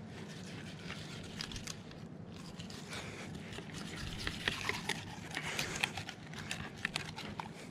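Fillet knife cutting into a Spanish mackerel, crackling and crunching as the blade goes through the skin and along the bones, with the clicks thickest in the middle stretch.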